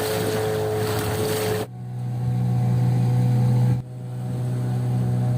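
Motorboat engine running with a steady low hum. The sound breaks off abruptly twice and comes straight back each time.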